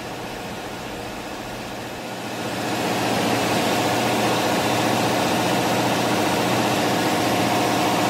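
Steady engine-room machinery drone with a few constant humming tones. It grows louder about two and a half seconds in, then holds.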